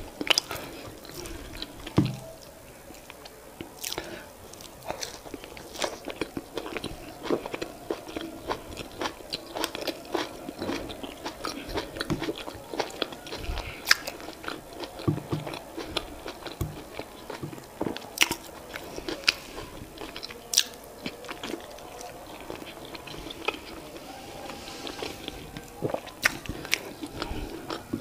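Close-miked chewing and wet mouth sounds of a person eating soft boiled yam and boiled egg by hand, with frequent short smacks and clicks.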